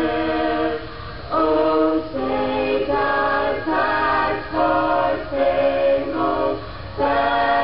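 An a cappella vocal quartet of two young men and two young women singing into one microphone, holding chords in short phrases of a second or two with brief breaks between them.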